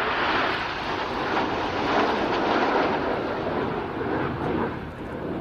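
Jet noise from BAE Hawk T1 trainers passing overhead in formation as a loud, steady roar that swells and eases over a few seconds.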